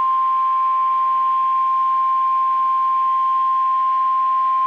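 NOAA Weather Radio 1050 Hz warning alarm tone: one loud, unbroken steady beep, the attention signal that comes before a warning message is read.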